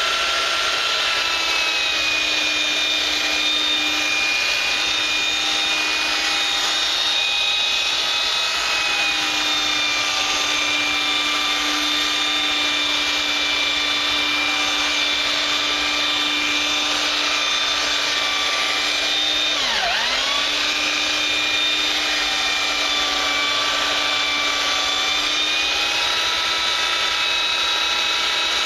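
Electric sander running steadily against a wooden cutting board, a hissing whir over a constant motor hum. About twenty seconds in the motor's pitch drops sharply for a moment and recovers, as the sander briefly slows under load.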